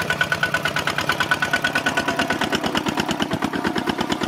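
Single-cylinder diesel engine of a two-wheel walking tractor running steadily while it pulls a disc plough through soil, with an even beat of about eight or nine firing pulses a second.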